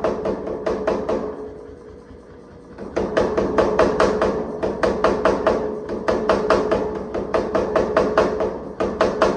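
Rapid, evenly spaced hammer blows forging a damascus steel knife blank, about five strikes a second over a steady ringing tone. The blows stop for nearly two seconds about a second in, then resume.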